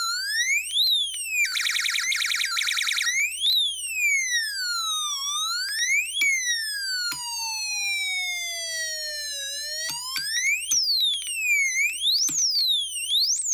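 KD9561 sound-generator chip sounding its fire-alarm tone through a small speaker: an electronic siren sweeping up and down in pitch, with a burst of rapid warbling about two seconds in. Midway the sweep slows to one long falling tone, then speeds up again as the chip's oscillator resistance is changed.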